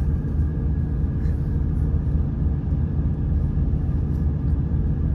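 Steady low rumble of a semi truck's diesel engine idling, heard from inside the sleeper cab, with a few constant low tones and no change in pitch or speed.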